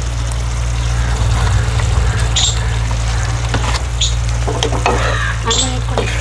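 Cucumber sabzi sizzling in a non-stick frying pan on a gas stove, with a few short crackles over a steady low hum.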